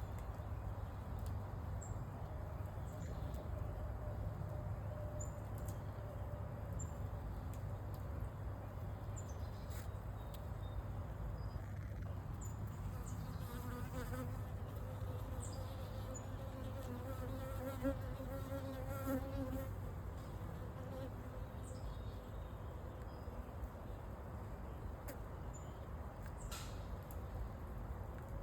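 Honeybee colony humming on the comb, a steady low drone. In the middle a single pitched buzz rises over the hum for several seconds, as one bee buzzes close by.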